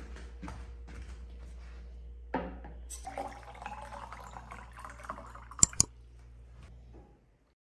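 Water poured into a drinking glass, the gurgle rising in pitch as the glass fills. It is followed by two sharp glassy clinks. Before the pour there is a knock, like a plate being set down on a wooden table.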